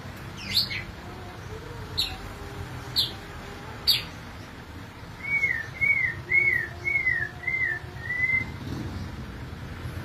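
White-rumped shama singing: sharp, very high notes sweeping steeply down, about one a second, then a run of six short arched whistles, about two a second.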